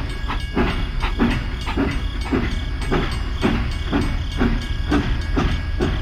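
Toy battery-powered steam locomotive running on plastic track: a steady rhythmic chugging, about two beats a second, over a continuous motor hum and whine.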